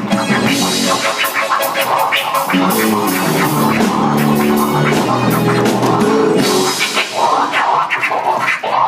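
Vinyl record scratched by hand on a DJ turntable, played live over a drum kit and electronic keyboard; held chords sound through the middle stretch.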